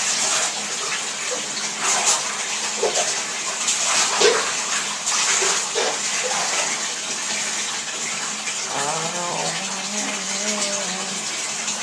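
Water running from a tap into a bathtub during a dog's bath, a steady rush, with a few short squeaks and a wavering whine near the end.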